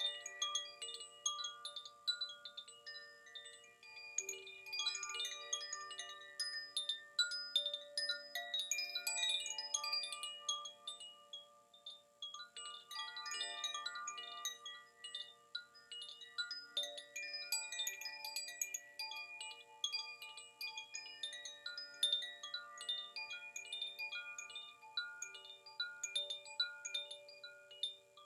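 Zaphir 'Sufi' chime ringing continuously, its tuned rods struck over and over in a dense, overlapping cascade of bright sustained notes on D, F and A with some G. The notes swell and ease off in waves and thin out near the end.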